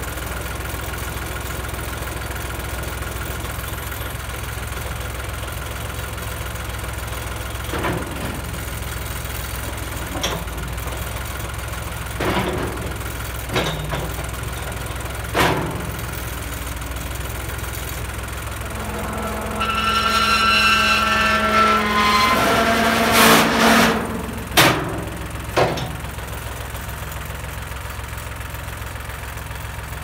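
Ford farm tractor engine idling while its front loader handles a steel sawmill carriage, with scattered metal clanks as the carriage is set onto the track. A steady higher whine joins the engine for a few seconds past the middle, and the loudest clanks come just after it.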